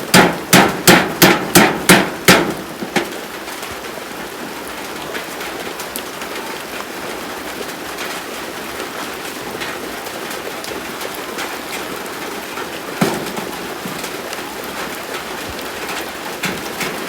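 A hammer striking wood, about eight quick blows in the first two and a half seconds, then steady heavy rain for the rest, with one more single knock about thirteen seconds in.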